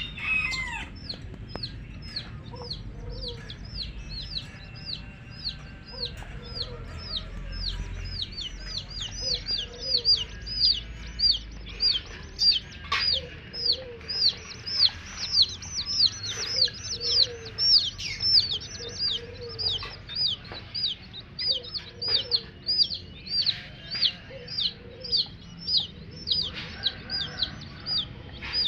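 Baby chicks peeping steadily, a continuous run of high, falling peeps about two a second, with low clucks now and then.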